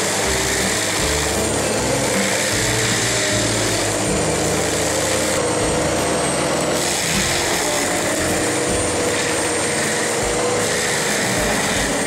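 FAE PrimeTech PT600 tracked forestry mulcher running steadily, its front rotor head grinding brush and a fallen log into chips.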